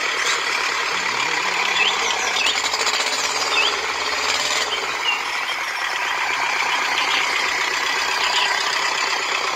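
Small electric motor and gearbox of a toy tractor whirring and grinding steadily while it pulls a loaded trailer through sand, with a few faint squeaks.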